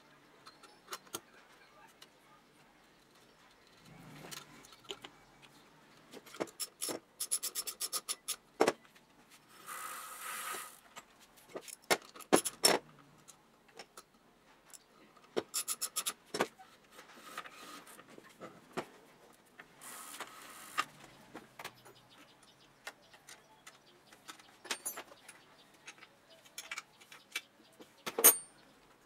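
A socket ratchet clicks in quick, even runs as a nut at a child's bicycle rear axle is tightened. Clinks and taps of metal tools and parts come between the runs, and a sharp knock sounds near the end.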